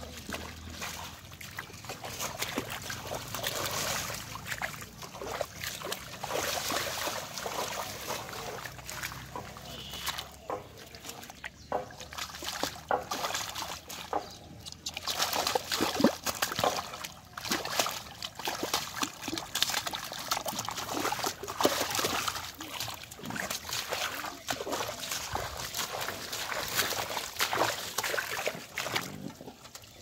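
Hands sloshing and splashing in shallow muddy water, groping through mud and weeds to catch fish by hand, in irregular bursts with wet slaps and clicks.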